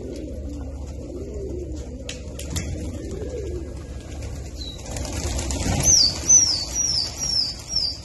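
Racing pigeons cooing softly, then the flock taking off about five seconds in with a rush of flapping wings, the loudest part. Over the wingbeats a bird gives five quick high chirps, each falling in pitch.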